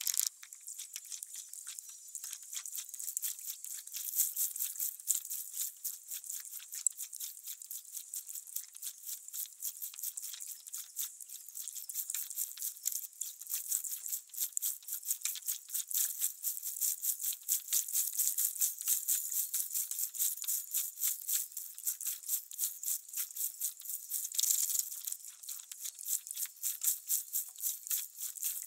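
Dense chorus of insects chirping at dusk: a steady, high-pitched, raspy pulsing with nothing low in it.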